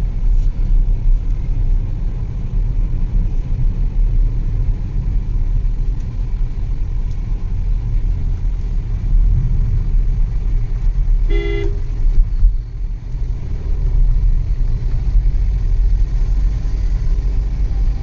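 Steady engine and road rumble inside a moving car's cabin, with one short vehicle horn honk a little past halfway.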